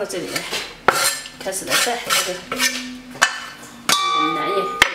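Wooden chopping board knocking and scraping against a stainless steel bowl as chopped mugwort leaves are pushed off into it. There are a few sharp knocks, and one near the end leaves the steel bowl ringing for almost a second.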